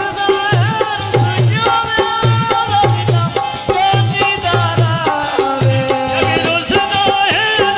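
Live Punjabi folk tappe-mahiye music: male voices singing in long, bending melodic lines over a regular drum beat and fast, bright rattling percussion.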